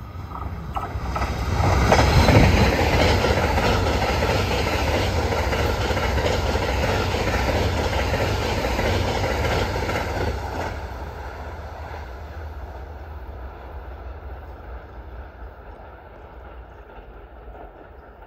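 Limited-express electric train passing at high speed: wheel-on-rail noise builds quickly, stays loud for about ten seconds as the cars go by, then dies away.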